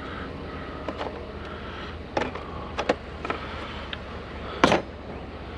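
Handling of a discarded PS4 console's plastic casing: a scatter of short clicks and knocks, the sharpest near the end, over a steady low hum.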